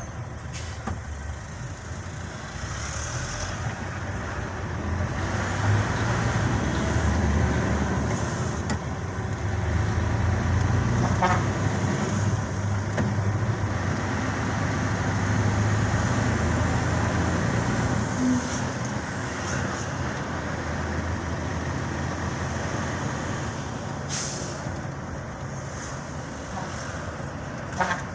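Engine and road noise of a moving vehicle heard from inside its cab: a steady low rumble that swells louder and eases off as it drives along the highway, with a brief hiss near the end.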